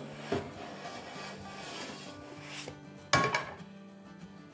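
Soft background music with a faint scrape of the pizza sliding out of the nonstick frying pan, then a sudden clank about three seconds in as the metal pan is set down on the gas stove's grate.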